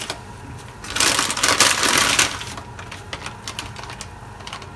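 Plastic packet of dry sotanghon (glass noodles) crinkling as the noodles are pulled out and dropped into the pot, loudest from about one to two seconds in, with lighter rustles and ticks after.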